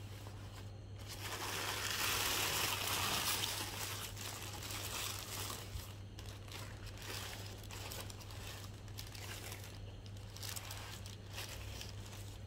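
Tissue paper rustling and crinkling as it is folded back from a pair of shoes in a cardboard shoebox. It is loudest for a couple of seconds starting about a second in, then turns to lighter, uneven rustling of paper as a shoe is handled.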